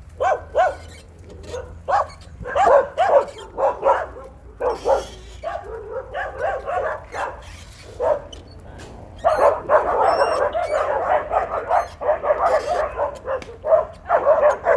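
Farm dogs barking repeatedly, in short separate barks at first, then several barking over one another for a few seconds from about nine seconds in.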